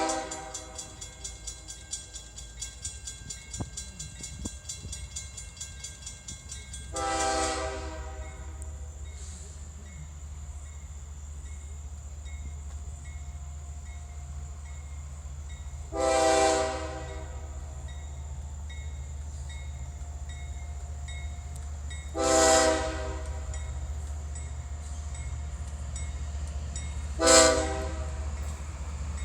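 Air horn of the lead ES40DC diesel locomotive on a CSX freight train, a chord of several tones, sounding four separate blasts of about a second each, roughly 7, 16, 22 and 27 seconds in; the last blast is shorter. Under the blasts runs the steady low rumble of the approaching diesel locomotives, and a loud blast just before fades out over the first few seconds.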